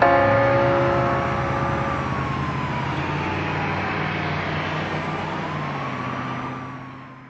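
The closing of an electro-swing track: a chord hits at the start and rings away over a hiss, while a thin whistling tone slides slowly down and back up like a distant siren. It all fades out near the end.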